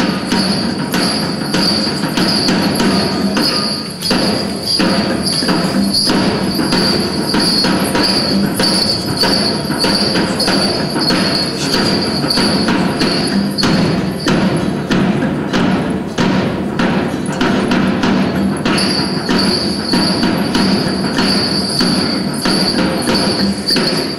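Matigsalug folk music played live on a two-string boat lute (kuglong) and a bamboo tube zither (saluray), plucked in a quick, continuous, unbroken rhythm.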